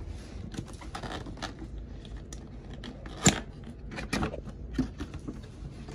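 A cardboard box being handled and opened: fingers scraping and tapping the card and a sleeve sliding off, with a sharp snap about three seconds in.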